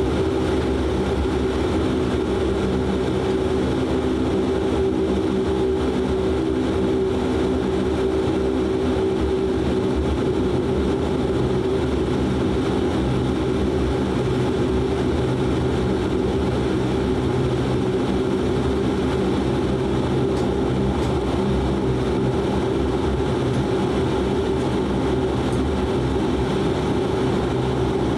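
De Havilland Canada Dash 8-400's Pratt & Whitney PW150A turboprops heard from inside the cabin at taxi power: a steady propeller drone with a cluster of low steady tones over a constant rush.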